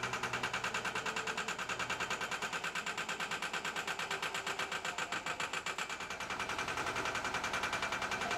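Bobcat M611 skid-steer loader's engine running, with an even, rapid pulse of about nine beats a second as the machine works its bucket into a bank of earth.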